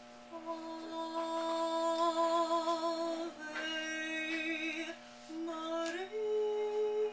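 A woman singing a slow song in long held notes with vibrato. There is a short break about five seconds in, then she moves up to a higher held note.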